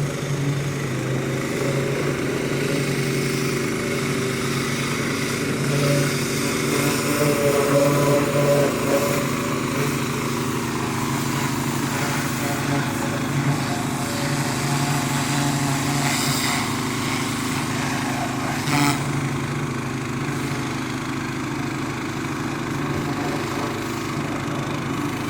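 Pressure washer rig's Kohler gas engine running steadily under the hiss of the high-pressure spray, with a brief sharp knock about nineteen seconds in.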